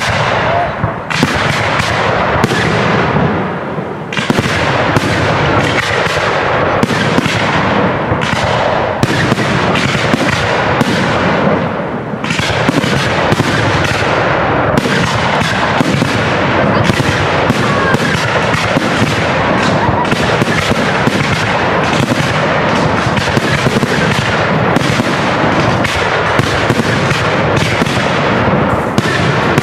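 Aerial firework shells bursting in a rapid, almost unbroken barrage of bangs, one after another with hardly a gap.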